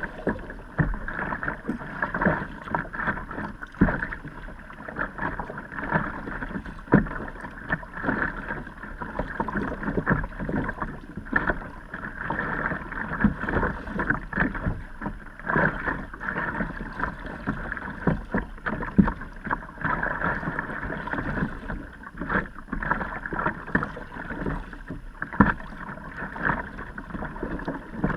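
Water splashing and sloshing around a kayak, with frequent irregular knocks and splashes, sounding muffled.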